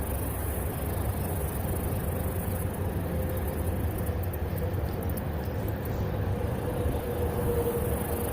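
Steady low rumbling background noise with a faint, steady hum.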